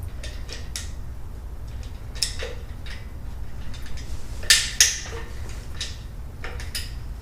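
Scattered metal clinks and knocks of a steel caster mounting plate being handled and fitted against the engine hoist's leg, the loudest two close together about four and a half seconds in, over a steady low hum.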